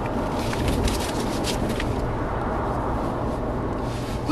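Steady road and engine rumble of a moving truck heard from inside its cab, with a few light clicks in the first two seconds.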